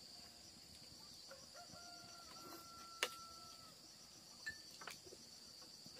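Faint crickets chirring steadily and high, with a single sharp click about halfway through and a faint, held distant call in the middle.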